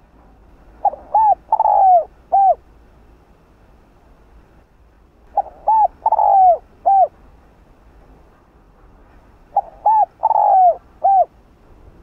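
Spotted dove cooing: three song phrases about four seconds apart, each of four notes, the third note longer and falling in pitch.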